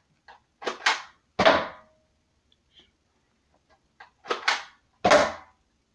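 A small ball striking an over-the-door mini basketball hoop and the door: two shots about four seconds apart, each a few light knocks ending in a heavier thud, the first with a brief ring after it.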